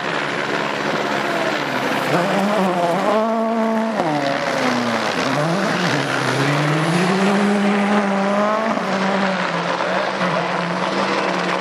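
Rally car engine at hard throttle as the car drives past, its revs climbing, dropping sharply about halfway through, then climbing and holding again.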